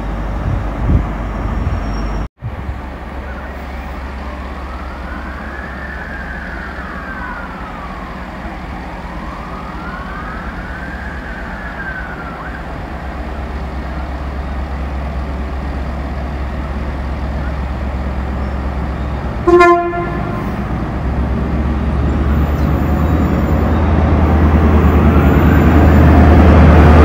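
An emergency-vehicle siren wails slowly up and down twice over a steady low rumble. About twenty seconds in a single short horn toot sounds, then a low engine drone grows steadily louder towards the end, like an approaching diesel locomotive.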